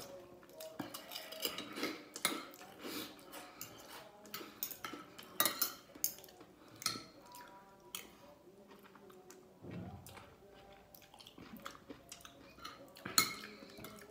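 Metal spoon and fork clinking and scraping against a ceramic plate, with chewing in between. The sharpest clinks come about five and a half seconds in and near the end.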